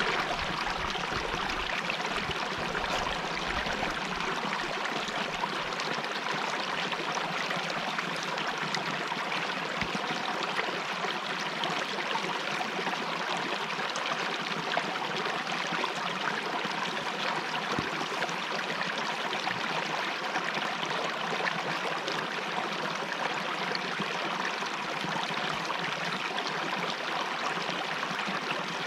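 Stream water running steadily over rocks, an even rushing.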